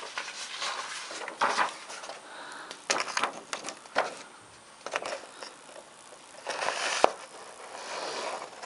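A sheet of paper rustling and crackling in irregular bursts as it is handled and set in place, with one sharp click about seven seconds in.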